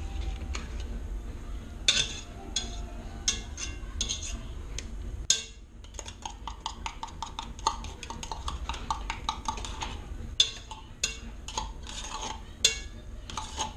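A metal utensil scraping and clinking inside a small tin can of tomato paste, knocking the paste out into a pan in a string of irregular clicks, with a quick run of scraping ticks in the middle.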